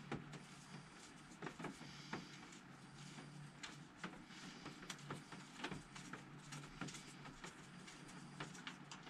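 Faint rustling of a paper towel and scattered small clicks as a motorcycle's oil dipstick is wiped clean and handled.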